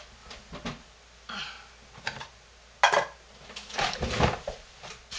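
Things being moved and set down on a table: scattered light knocks and clatters, a sharper knock about three seconds in and a cluster of heavier thumps around four seconds in.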